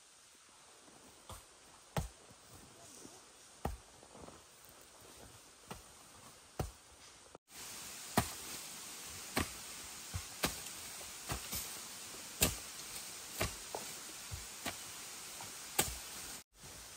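A digging tool striking into the earth again and again while bamboo shoots are dug out: sharp chopping strikes at an uneven pace, roughly one a second, louder in the second half.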